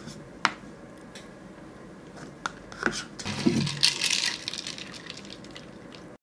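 Metal spoon clicking and scraping against a paper ice cream cup and being set down on it, then ice cubes rattling in a glass jar of iced tea as it is lifted and drunk from. Sharp small clicks throughout, the sound cutting off suddenly near the end.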